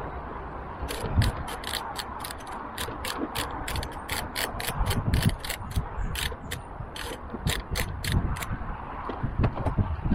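Half-inch drive ratchet with a Torx bit clicking in quick, even runs as the scooter's grab-handle bolts are undone, with a few dull knocks of handling underneath.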